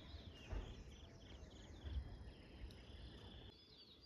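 Faint insect chirping, short high pulses repeated evenly, cricket-like, with a couple of soft low bumps.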